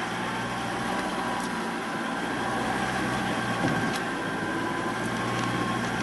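Car engine running steadily at idle, a constant low hum.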